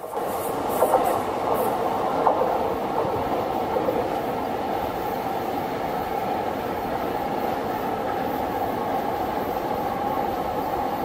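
JR East 211 series electric multiple unit rolling slowly along the tracks: steady wheel-and-rail running noise, with a few sharper clicks over the rail joints in the first few seconds.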